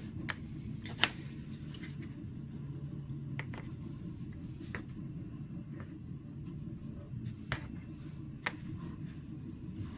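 Scattered light clicks and taps of small plastic parts and nuts being handled during assembly, the sharpest about a second in, over a steady low hum.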